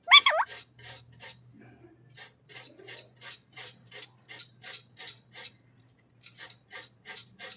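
An Indian ringneck parrot gives one short squawk, then a steady run of soft rasping scrapes follows, about three a second, over a faint low hum.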